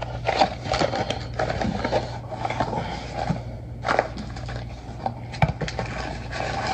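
Paper and cardboard takeout packaging being handled: irregular rustling, scraping and clicking, over a steady low hum.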